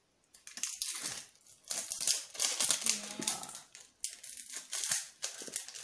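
Plastic wrapping on a new smartphone box crinkling and crackling irregularly as hands work at getting it open, with short pauses.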